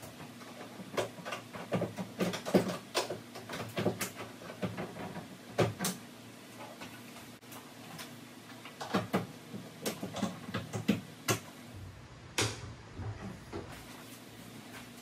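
Irregular knocks, clicks and clatter of wooden cabinet parts and hardware being handled, in two busy spells with a lull of a few seconds between them.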